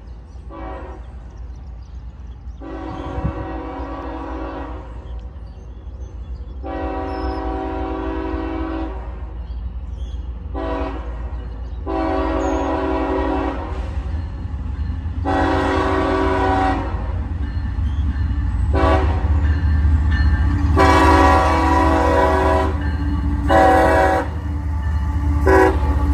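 CSX diesel freight locomotive's air horn sounding a series of long and short blasts, starting with long, long, short, long, the grade-crossing signal. Under it the locomotives' low engine rumble grows louder as the train approaches.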